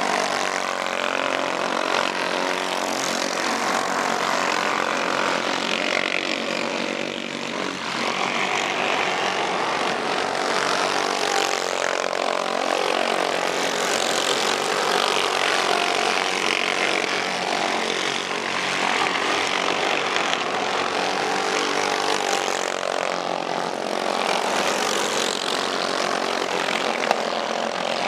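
Racing go-kart engines buzzing continuously at race speed as karts lap the track, with several engines heard together and karts passing close by.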